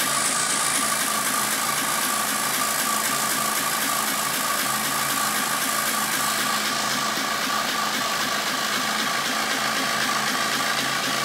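Tractor engine running steadily, with a constant whining tone over the engine noise.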